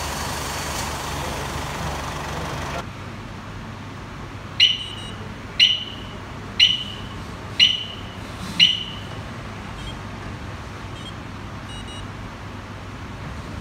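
A steady rushing noise cuts off abruptly about three seconds in. Then come five short, high electronic beeps, evenly spaced about a second apart, followed by a few much fainter beeps.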